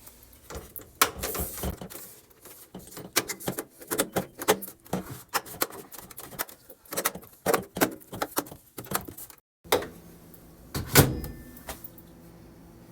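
Irregular clicks and knocks of plastic microwave door parts being handled and fitted back together, then, after a short break, one louder knock near the end.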